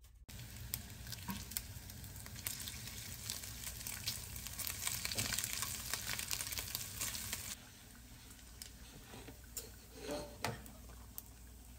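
Bacon strips sizzling and crackling in a frying pan over a gas flame as they fry toward crisp. The sizzle drops noticeably quieter about seven and a half seconds in, with a few light clicks after that.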